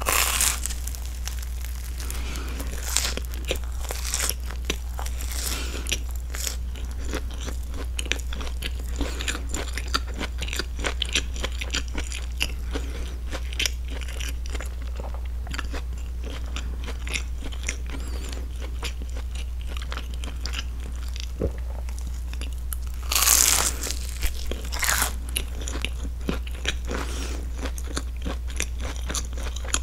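Close-up eating sounds of a grilled broccoli cheese sandwich: crunchy bites into the toasted bread crust, one right at the start and another loud one about 23 seconds in, between them steady wet chewing with many small mouth clicks and nose breathing. A steady low hum runs underneath.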